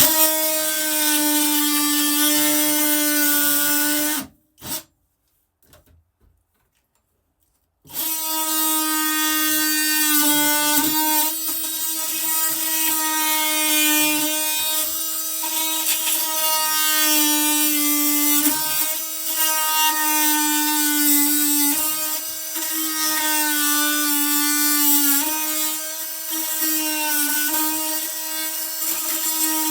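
Electric power tool cutting into rotten plywood-like OSB, a steady high motor whine. It runs for about four seconds, stops briefly, then runs on steadily, its pitch dipping for moments as it bites into the wood.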